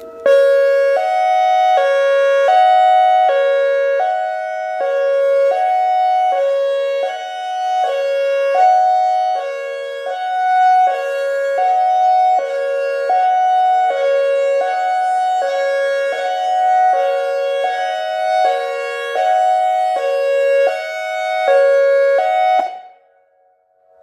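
ACA Alertronic AR-1600 electronic warning siren sounding a hi-lo signal: a chord-like tone that alternates between two pitches about once a second, swelling and fading as the rotating horn turns. It starts abruptly and cuts off about a second before the end, leaving a fainter steady tone.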